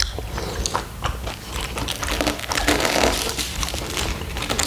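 Chewing and biting into kunafa, its crisp shredded-pastry top crunching in small clicks and crackles, with a denser stretch of crunching about halfway through.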